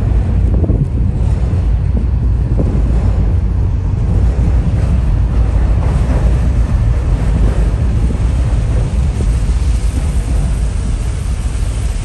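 Wind buffeting the microphone: a steady, heavy low rumble, with a hiss that swells near the end.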